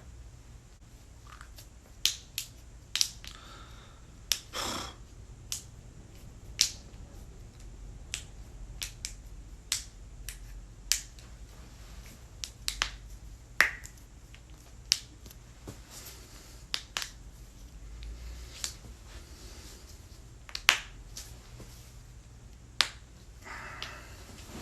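Human joints cracking under chiropractic adjustment: a string of about two dozen sharp pops at irregular intervals, some in quick pairs or clusters. The loudest comes about three-quarters of the way through.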